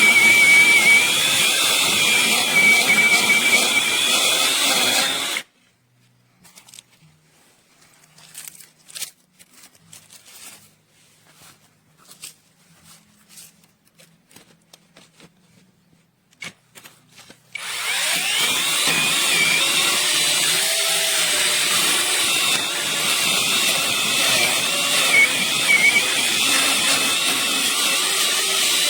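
Battery-powered brushless mini chainsaw cutting wood, a high motor whine that wavers as the chain takes load. It stops about five seconds in, leaving faint clicks and knocks, then starts cutting again about twelve seconds later.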